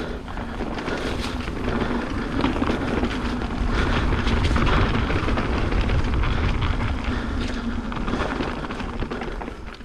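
Mountain bike rolling fast down a dirt trail: wind rushing over the microphone, tyre noise and rattling clicks from the bike over rough ground. Louder in the middle, easing off near the end.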